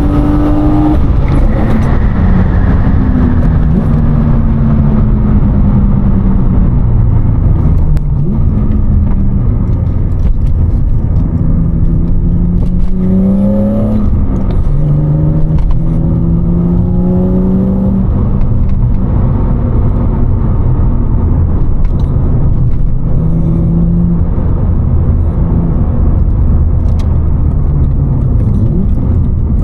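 BMW E36 325i's M50B25 straight-six with a Supersprint race exhaust, heard from inside the cabin with the windows up while driving. Its pitch climbs under acceleration and drops sharply at gear changes several times, about a second in and again near the middle.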